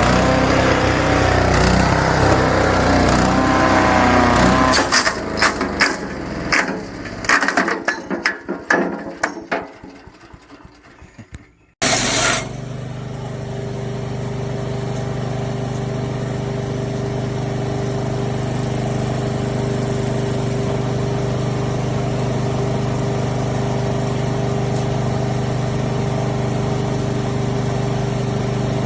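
A SuperHandy wood chipper's 7 HP engine running, then dying away over several seconds with a string of uneven knocks until it is nearly silent. About twelve seconds in, it starts again with a sudden burst and then runs steadily.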